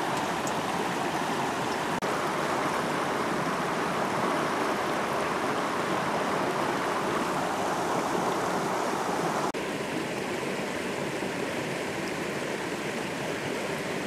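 Mountain river running over rocks: a steady rushing of flowing water, dropping a little in level about nine and a half seconds in.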